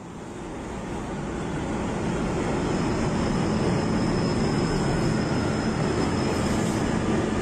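Commuter train running past: a steady, rumbling roar that fades in over the first two seconds, with a faint high whine above it.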